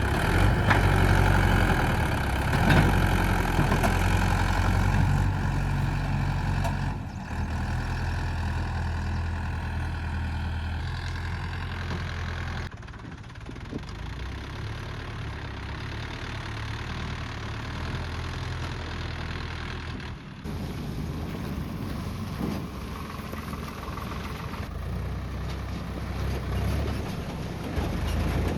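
Heavy diesel engine running steadily, its sound changing abruptly several times.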